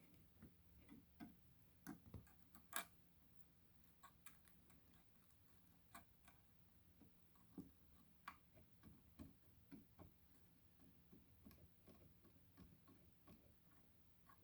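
Near silence with faint, scattered light clicks and taps of soldering work on a lithium iron phosphate cell pack: the iron, wire and cells being handled. The sharpest click comes about three seconds in.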